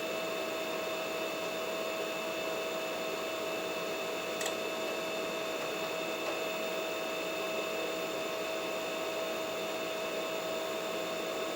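Desktop PC running steadily: an even fan hiss with a steady, fairly high whine over it, and one faint click about four and a half seconds in.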